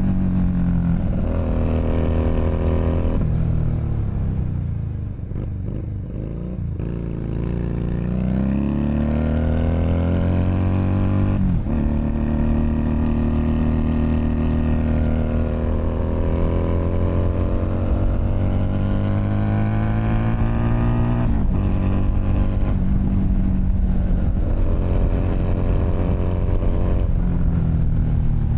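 Keeway SCR 250V motorcycle engine running through a custom shortened chopper-style exhaust while riding. The engine note falls and quietens about four seconds in, then climbs again, with two gear changes at about twelve and twenty-one seconds and steady running between.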